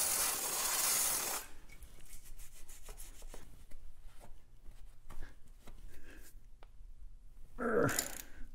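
A rushing hiss that cuts off about a second and a half in, followed by scattered light clicks and knocks, and a louder short scrape near the end.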